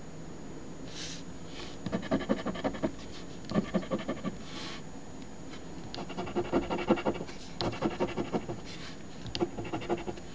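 A coin scraping the latex coating off an instant lottery scratch ticket. The rapid back-and-forth strokes come in short bursts, about five of them, with brief pauses in between.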